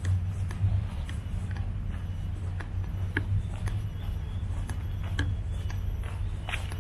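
Footsteps on a path, about two a second, over a steady low rumble.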